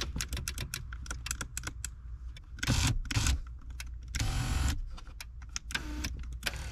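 Power seat control module relays in a 1999 Jeep Grand Cherokee clicking repeatedly as the seat switch is worked, while the vertical seat motors don't move. The clicking is taken as a sign that the switch works and the fault lies in the motors. Two short bursts of rushing noise come in the middle.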